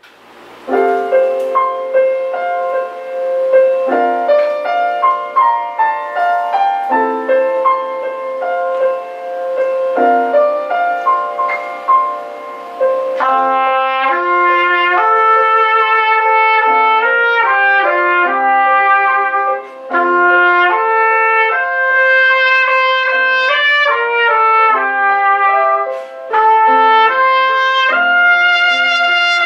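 Solo trumpet piece with piano accompaniment. The piano plays an introduction alone, and the trumpet comes in about halfway with a slow, held melody over the piano chords.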